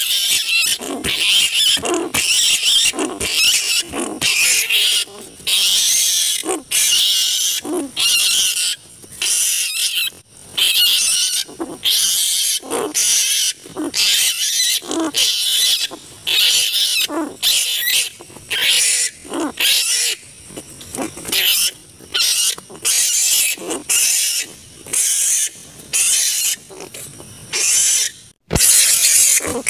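Large flying foxes (kalong) calling: harsh, shrill screeches and squabbling chatter in quick, irregular bursts, with a brief break near the end.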